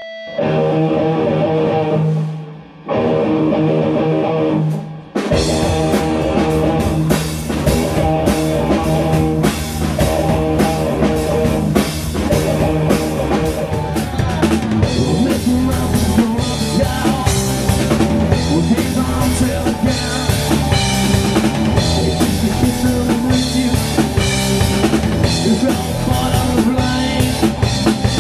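Rock band music: held chords for the first few seconds, then the drum kit and electric guitars come in about five seconds in and drive a steady beat.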